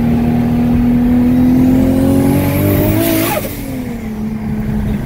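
Tuned Nissan Skyline R34 25GT Turbo's turbocharged straight-six pulling hard, heard from inside the cabin, its pitch and a thin turbo whistle rising. About three seconds in it lifts off with a short burst of turbo flutter, and the revs fall away.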